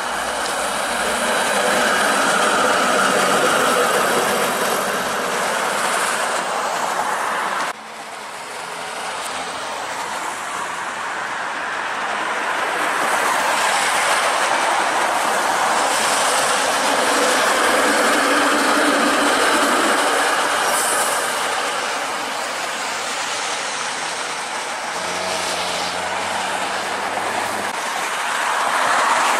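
Street traffic on a wet road, with cars hissing past and a CLRV streetcar running on its rails. The noise swells and fades as vehicles pass and drops suddenly about eight seconds in.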